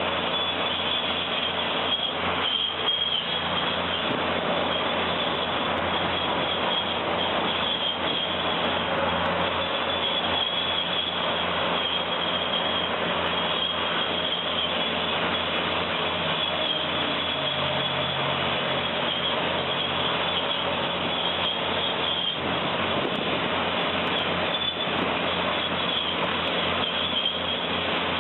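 Heavy machinery running steadily, an engine under load with a dense, even noise over it, no breaks or pauses.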